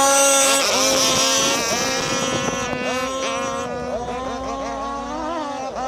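Radio-controlled deep-V speedboat's freshly modified G300 two-stroke petrol engine running at high revs as a steady, high-pitched whine, with a few quick dips and recoveries in pitch where the throttle is eased and reopened, early on and near the end.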